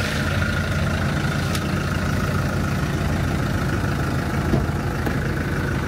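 Diesel Jeep Liberty's 2.8-litre four-cylinder turbodiesel idling steadily.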